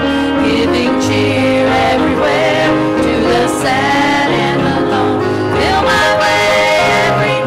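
Gospel hymn sung by male and female voices with acoustic guitar accompaniment.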